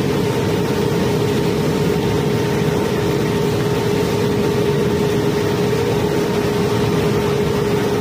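Cobblestones flowing steadily through a narrow steel chute during barge unloading, a dense continuous clatter. Under it runs a machine's constant droning hum.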